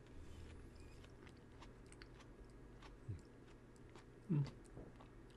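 A man chewing a mouthful of soft Amethyst Jewel tomato, faint wet mouth clicks throughout, with two short low hums about three seconds and four and a half seconds in.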